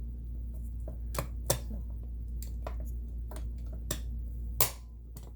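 Irregular light clicks and taps of small parts being handled on a Kenmore sewing machine while its buttonhole cam is being set, with a sharper click about one and a half seconds in and another near the end. A steady low hum underneath drops a little at the last click.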